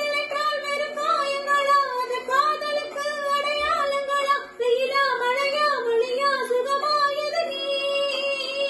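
A woman singing a Tamil song solo, holding a long melodic line in a high register with ornamented notes that bend and waver up and down.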